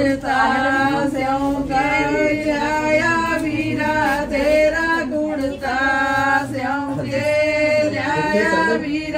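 Voices singing together in long held notes, stopping abruptly near the end.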